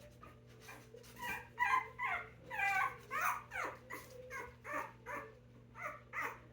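Five-week-old Puggle puppies whining and yelping in a run of short calls, each falling in pitch, about two a second, starting about a second in.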